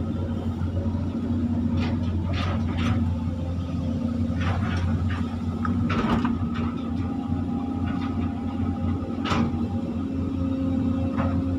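Volvo excavator's diesel engine running steadily under working load, heard from inside the cab, with a steady hydraulic whine. Several sharp knocks and clanks from the bucket and boom come as it dumps wet mud into a lorry and swings back to dig.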